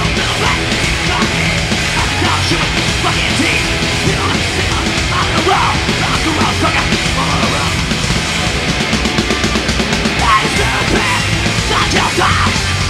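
Live horror-punk/metal band playing loud: distorted electric guitars over bass and drums, with no let-up.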